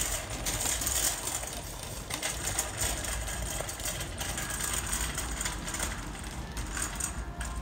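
Metal shopping cart rolling steadily over a polished concrete floor, its wheels rumbling and the wire basket rattling.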